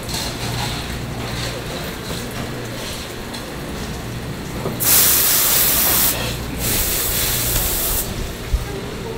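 Running water from a tap rinsing a fish's skin, with two loud spells of spraying water about five and seven seconds in, over a steady low background hum.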